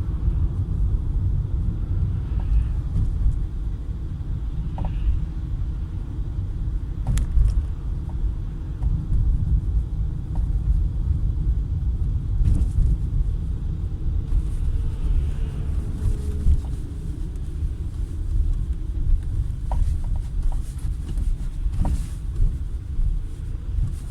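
Peugeot 408 on the move, a steady low road rumble with a few separate sharp knocks through it: the knock from the car's front end.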